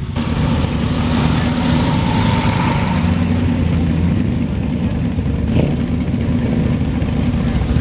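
Hot rod engine running with a steady, deep exhaust note as the car drives slowly forward.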